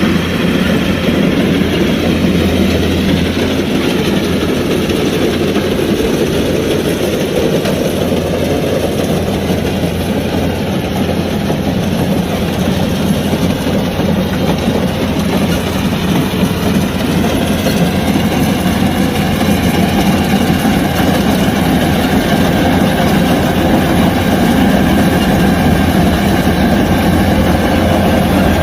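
Kubota DC-105X combine harvester running steadily while harvesting rice: a diesel engine drone under a dense mechanical rattle and clatter, a little fuller in the second half.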